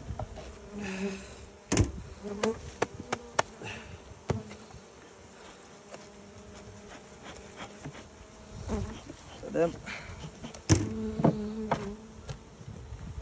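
Honeybees buzzing in a steady hum over an open hive full of frames, broken by a string of sharp knocks and clicks, the loudest about ten and a half seconds in.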